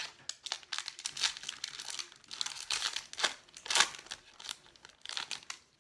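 Wrapper of a Topps Chrome baseball card pack crinkling and tearing as it is pulled open by hand, a run of irregular crackles with a few louder snaps.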